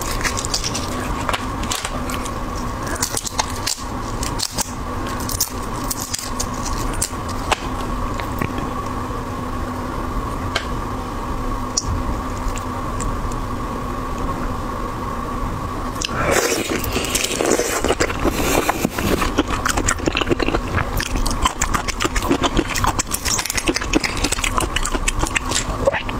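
Large red shrimp being peeled by hand close to the microphone: the shell and legs crackle and snap as they are pulled away, over a steady faint hum. The crackling grows much denser a little past halfway through.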